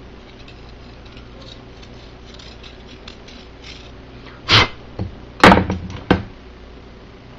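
Faint scratchy rubbing on a fishing rod blank being sanded, then several loud knocks and clatters of hard objects on a table about four and a half to six seconds in.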